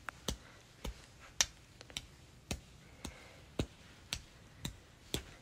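Paper cutouts being flicked one after another with a fingertip: a string of sharp, light clicks, about two a second and unevenly spaced.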